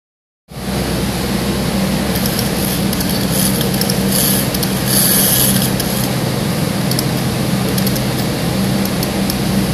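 Steady machine-room hum and whir, with a run of rapid fine clicks from about three to five and a half seconds in as the wind-up tin toy's clockwork is wound.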